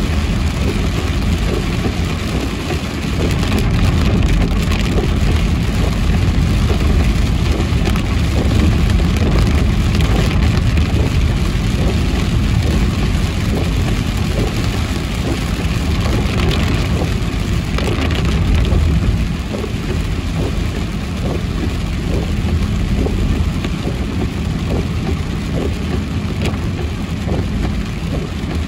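A car driving in heavy rain: rain hitting the car over a steady low rumble of engine and road noise.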